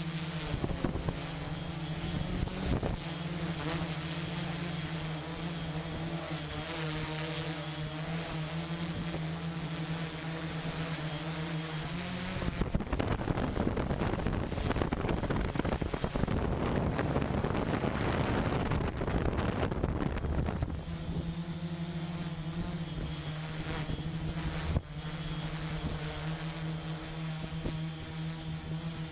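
A machine engine running steadily with an even hum. For about eight seconds in the middle, a rushing noise covers it, and then the hum is heard again.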